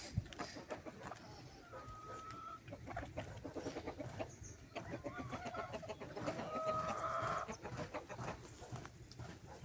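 Chickens clucking, with many short scratchy sounds and two longer drawn-out calls, one about two seconds in and a louder one near the end.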